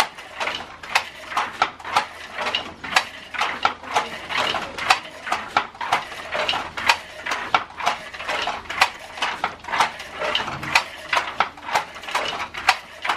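Wooden handloom weaving a woollen shawl: a steady run of clacks and knocks, about two to three a second, from the shuttle and beater working the weft.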